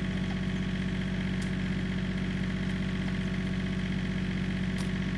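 Tractor engine idling steadily, with an even, unchanging note.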